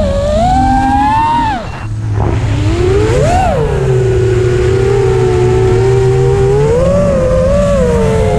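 FPV racing quadcopter's brushless motors and propellers whining, the pitch rising and falling with the throttle. The whine drops away briefly about two seconds in, then surges up, holds steady, and climbs again near the end.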